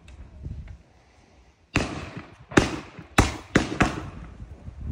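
Consumer firework compound cake (Verbund) firing gold comet shots. After a pause of about a second, five sharp bangs come over about two seconds, closer together toward the end.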